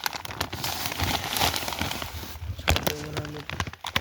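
Crinkling and rustling of a poultry feed bag as feed is handled and scooped out, with scattered clicks. About three seconds in, a short low-pitched call sounds briefly.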